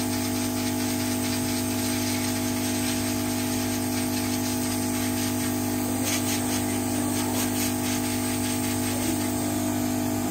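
Hot air rework station handpiece blowing steadily on a phone's charging sub-board, a constant rushing hiss over a low fan hum, as hot air is applied to the solder of a newly fitted charging socket.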